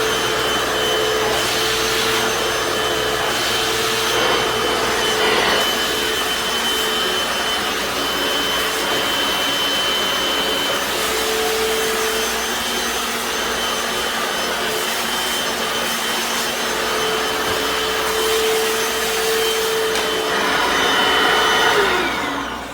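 Hoover FloorMate Deluxe hard floor cleaner running steadily, its suction motor whining as the spin brushes scrub a tile floor. Near the end it is switched off and the motor winds down, its whine falling in pitch.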